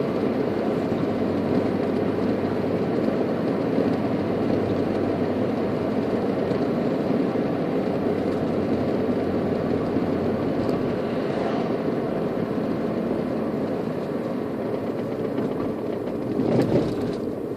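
Steady road noise of a car driving along a paved road, heard from inside the cabin: tyre and engine noise with no change in speed.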